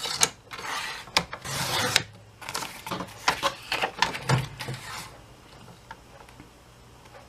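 Paper trimmer cutting printed paper: two rasping strokes of the blade along its track in the first two seconds, then a run of light clicks and taps as the paper and trimmer are handled, stopping about five seconds in.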